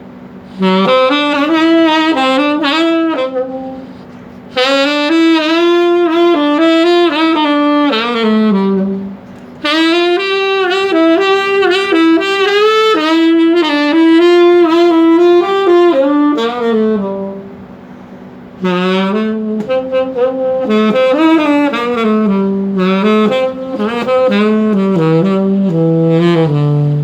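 Tenor saxophone with a J&B Custom Jaguar mouthpiece, 6* tip opening, playing smooth-jazz phrases in four passages with short breaks for breath. The last phrase steps down into the low notes of the horn.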